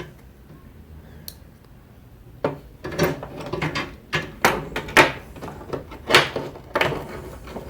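A run of about a dozen irregular sharp metal knocks and clicks, starting a couple of seconds in, as a spring pin is worked back into a gas strut's bracket.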